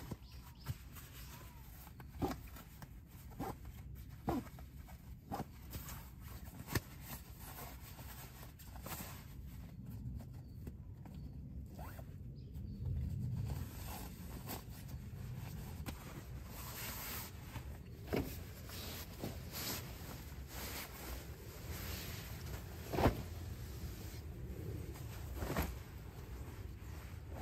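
A nylon compression stuff sack being unpacked: its straps are loosened with a run of sharp clicks, then a puffy sleeping bag is pulled out and shaken open with steady fabric rustling.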